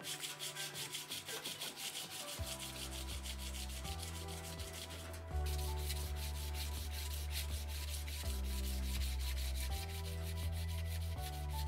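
Sandpaper on a flat stick rubbed rapidly back and forth over a clamped metal workpiece, hand-sanding it in quick, even strokes with a brief pause about halfway. Background music with a bass line comes in after about two seconds.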